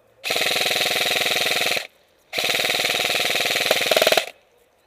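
Airsoft gun firing on full auto in two long bursts, about a second and a half and two seconds long, with half a second between them.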